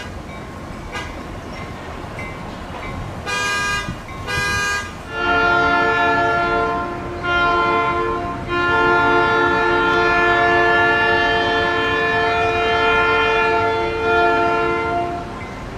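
Diesel freight locomotive's air horn sounding: two short toots, then a multi-note chord in a longer blast, a short blast and a long held blast of about six seconds, over the train's steady rumble.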